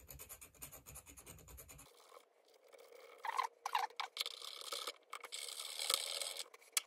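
Pointed nippers scratching the metal positive terminal cap of an 18650 lithium-ion cell in quick rasping strokes, roughening the cap so solder will stick. The strokes grow louder from about three seconds in.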